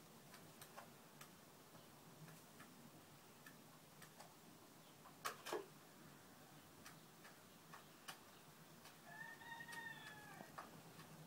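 Near silence with faint, irregular clicks, two sharper ones about five seconds in. Near the end the dozing laying hen gives one soft, thin note that rises and then falls over about a second and a half.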